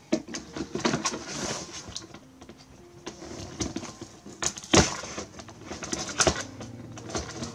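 Cardboard display box being torn open along its perforated front by hand: scattered rustling and creaking of card, with a sharp crack about five seconds in and another just after six seconds as a corner gives way.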